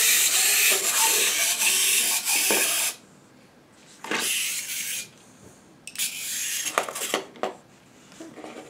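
Small plastic wind-up toy squid's clockwork mechanism whirring steadily as it runs sideways, stopping suddenly about three seconds in. After that come a few short clicks and rattles as the toy is handled.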